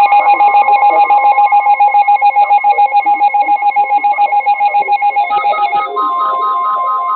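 Electronic emergency-alert tone pulsing rapidly like a ringing phone. About six seconds in it changes to a steady, slightly higher tone. It is the alert that signals a tornado warning is about to be read.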